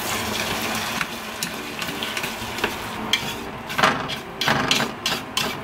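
Beaten egg frying with a steady sizzle in a rectangular egg-roll pan, while chopsticks stir and scrape it and tap against the pan as the egg sets. The taps grow sharper and more frequent in the second half.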